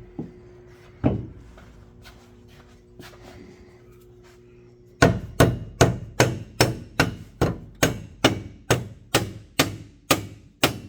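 Hammer blows while working a subframe connector into line with the car's subframe: one blow about a second in, then steady blows about two and a half a second from about halfway.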